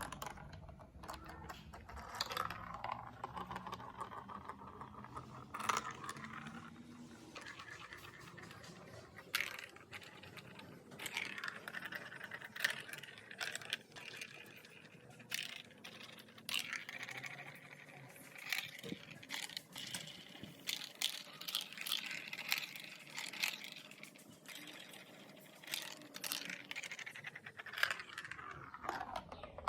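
Marbles rolling and clattering through a plastic marble-run track, with frequent sharp clicks and knocks as they drop and hit the pieces over a continuous rolling rattle.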